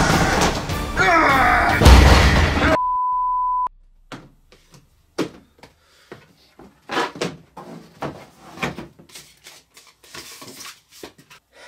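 Loud music with crashes and thuds as toy boxes are thrown onto a table, cut off about three seconds in by a steady high beep tone lasting about a second. After it come scattered light knocks and clatter as toy boxes and a plastic helmet are handled on the table.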